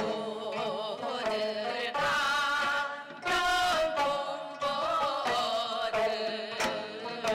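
A woman singing a Korean folk song with a wide, wavering vibrato while she plucks a gayageum (Korean twelve-string zither), with another gayageum accompanying.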